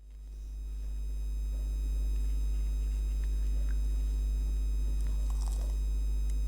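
Electrical buzz from a light fixture: a steady low mains hum with a thin, high buzz over it, fading up over the first second or two. A few faint clicks about five seconds in.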